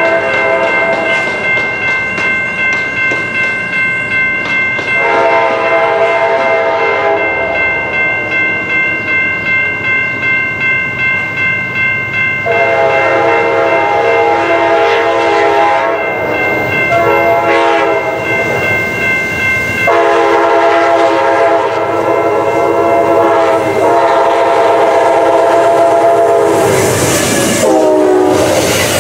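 Amtrak diesel passenger train's multi-chime air horn sounding a series of long blasts with one short one as the train approaches. Near the end the horn's pitch drops as the locomotive passes, and the rumble and clatter of the passenger cars going by takes over.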